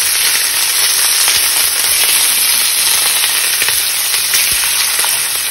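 Beef short-rib steaks searing in hot oil in a nonstick pan: a loud, steady sizzle with scattered crackles and pops of spattering fat.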